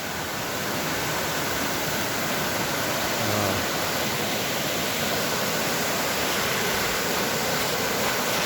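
A river rushing steadily, loud and unbroken.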